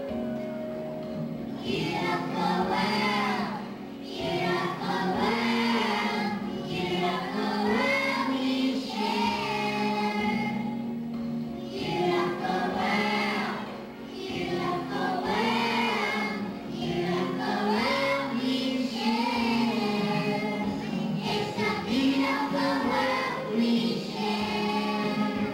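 A group of young children singing together over an instrumental accompaniment, the voices coming in about two seconds in.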